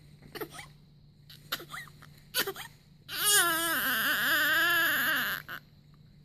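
Newborn baby fussing: a few short whimpers, then one long wavering cry of about two and a half seconds that breaks off suddenly.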